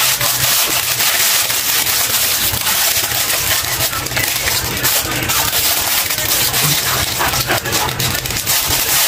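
Thin plastic bag and packing-tape rolls crinkling and crackling continuously as a chihuahua puppy chews and tugs at them, over a low steady hum.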